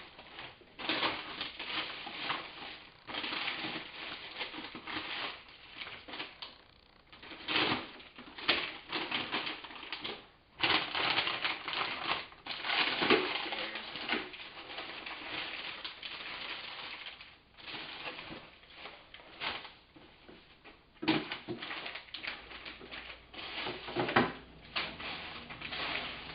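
Plastic bags of frozen fruit crinkling and rustling as they are rummaged through, in an irregular, crackly run with a few sharper knocks.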